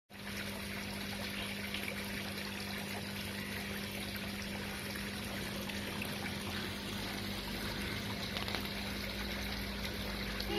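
Steady trickling of water running into a koi pond, with a steady low hum underneath.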